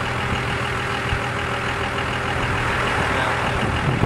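A vehicle engine idling steadily, with one short word of speech near the end.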